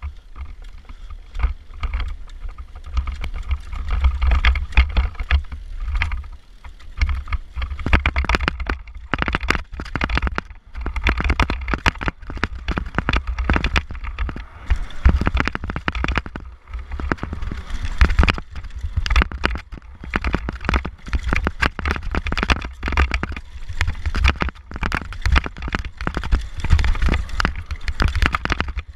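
Mountain bike ridden fast downhill on a dirt trail. Wind buffets the microphone with a heavy rumble, and dense, irregular rattles and knocks come from the bike as it hits bumps and roots.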